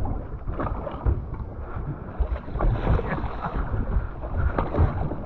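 Wind buffeting the microphone over uneven water and boat noise, with scattered small knocks.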